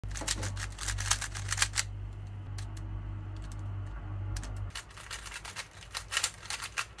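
Layers of a stickerless 3×3 speedcube being turned quickly by hand: runs of light, rapid clicks, thinning out in the middle and picking up again for the last two seconds or so.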